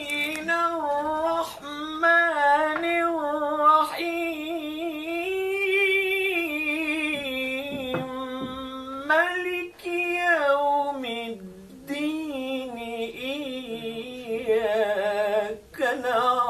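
A single voice reciting the Quran in a drawn-out melodic tajweed style. It holds long notes with wavering ornaments and breaks off briefly for breath about ten and twelve seconds in.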